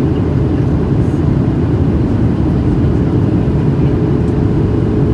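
Boeing 737-700 cabin noise: a steady low drone of the CFM56-7B jet engines and airflow around the fuselage, heard from a passenger seat.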